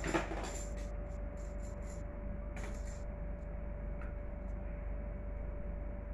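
Steady room hum with one constant tone. Over it, a light knock just after the start and a run of short clicks and rattles over the next three seconds, small plastic toys being handled.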